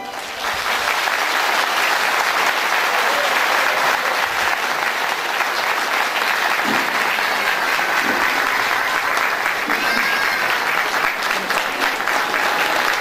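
Audience applauding steadily at the end of a folk dance performance.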